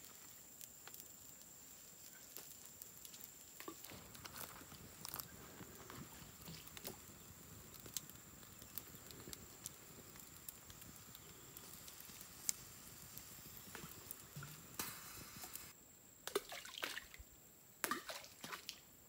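Small wood campfire crackling with scattered sharp pops over a steady high-pitched whine. Near the end, a few drips and small splashes in pond water.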